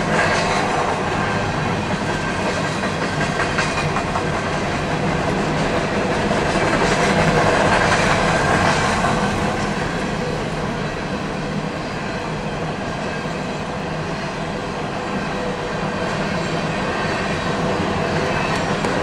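Empty coal hopper cars of a freight train rolling steadily past through a grade crossing, heard from inside a stopped car.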